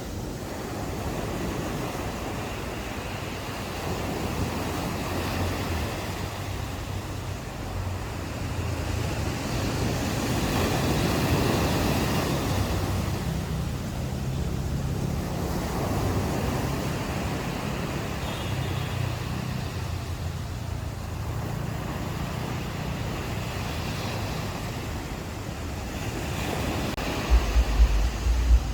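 Ocean waves washing onto a shore, a steady surf hiss that swells and falls back in slow surges, over a low rumble. Near the end come a few sharp low thumps.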